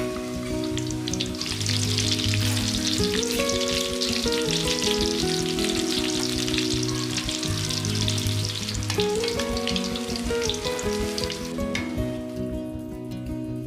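Fish meatballs frying in hot oil, a dense steady sizzle. The sizzle stops near the end, leaving soft background music.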